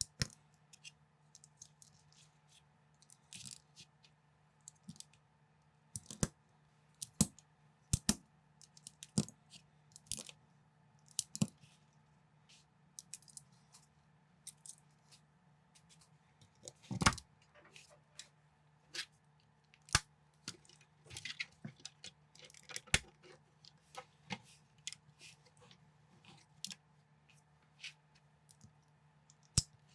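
Plastic building bricks being handled and pressed together: irregular small clicks and taps, with a louder knock about 17 seconds in, over a steady low electrical hum.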